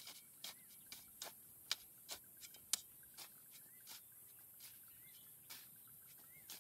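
Metal shovel digging into sandy, gravelly soil: the blade strikes and scrapes at irregular intervals as scoops of earth are lifted and tossed, with one sharper knock near the middle. A few faint short chirps sound behind it.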